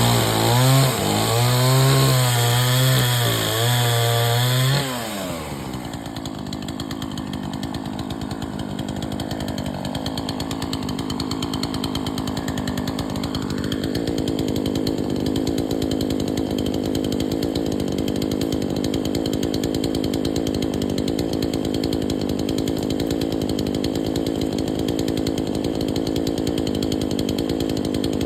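Remington chainsaw engine running hard, its pitch rising and falling as it cuts, then dropping to a steady idle about five seconds in.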